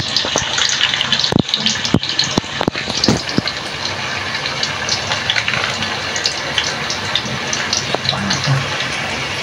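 Paste frying in hot oil in an aluminium wok: a steady sizzle, with a few clicks and knocks of a metal spoon and ladle in the first three seconds.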